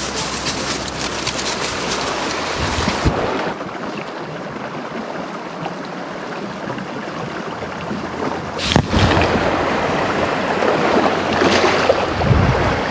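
Steady rushing of river water mixed with wind buffeting the microphone, with a sharp louder burst about nine seconds in.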